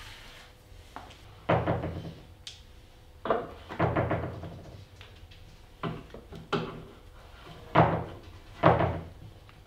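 Heavy knocks on wood, about seven in all, mostly in pairs roughly half a second apart, each ringing briefly.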